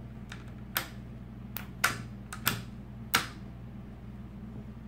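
Three-position safety lever on a bolt-action rifle being flicked back and forth through its positions: a series of short metallic clicks, about seven in all, the loudest three close together in the middle.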